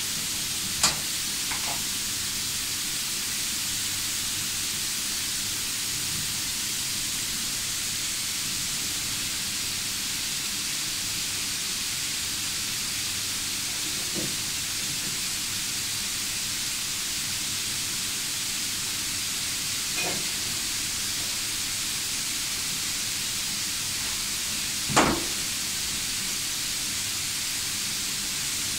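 A steady hiss, broken by a few sharp metallic knocks, the loudest near the end: steel parts of a tank mixer's shaft and blade assembly being handled and fitted together.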